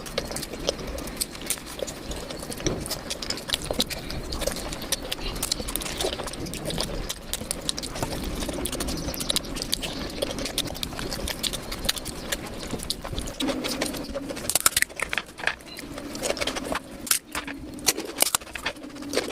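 Close-up eating sounds: chewing, smacking and crunching of food by mouth, with many small sharp clicks that come thicker in the last few seconds.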